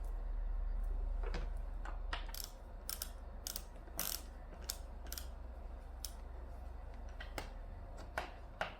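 Plastic parts of a Vacmaster upright vacuum being handled and fitted together by hand during assembly: a scattering of sharp clicks and taps, with a low hum underneath that drops away about two and a half seconds in.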